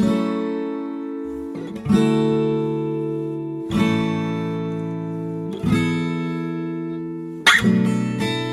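Background music: strummed acoustic guitar chords, each struck about every two seconds and left to ring out, with quicker strumming near the end.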